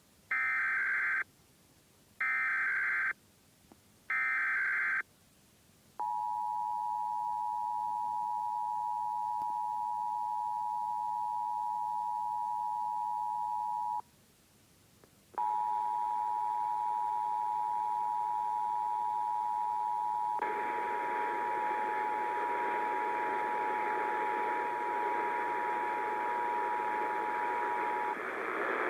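Emergency Alert System Required Monthly Test: three short bursts of the warbling SAME data header, then the steady two-tone attention signal for about eight seconds. After a brief break the attention signal sounds again for about thirteen seconds, with a hiss joining partway through.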